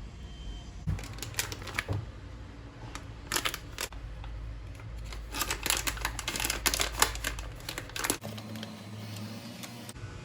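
Clusters of quick, light clicks and taps from small hard objects being handled, then a change to a steady low hum for the last couple of seconds.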